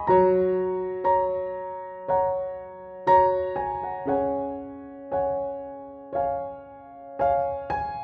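Background music: a gentle keyboard or electric-piano melody, notes struck about once a second and left to ring and fade.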